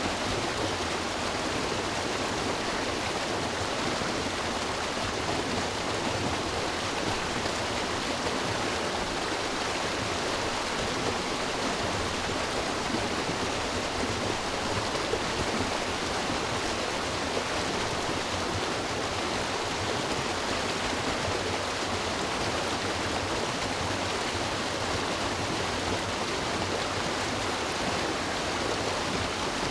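River water rushing and splashing in a steady, even flow.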